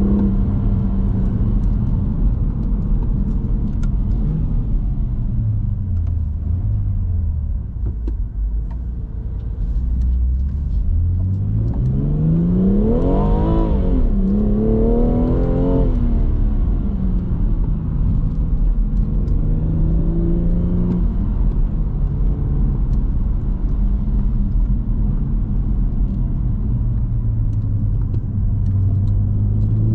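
2018 BMW M240i's turbocharged 3.0-litre straight-six driving hard. About midway it falls low and quiet, then the revs climb steeply, drop sharply, climb again and drop again at the gear changes, before settling to a steadier pull.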